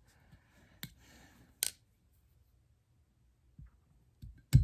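Small metal parts of a Glock slide clicking and knocking as they are worked back together by hand: three sharp clicks, the loudest near the end, with faint handling rustle and low thumps.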